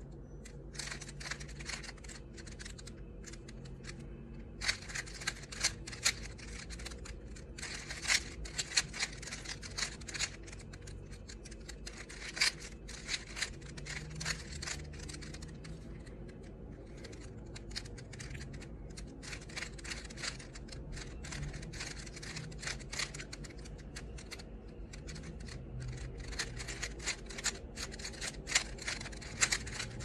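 A 3x3 Rubik's Cube being solved by hand: quick runs of plastic clicking as its loose, smooth-turning layers are twisted, with a short pause a little past halfway. A steady low hum sits underneath.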